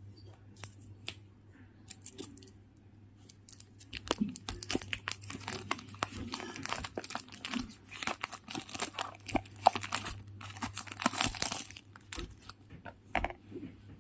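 Smartwatch box packaging being torn open and crinkled by hand. A few separate clicks come first, then a dense run of tearing and crackling rustles from about four seconds in until near the end, over a faint steady hum.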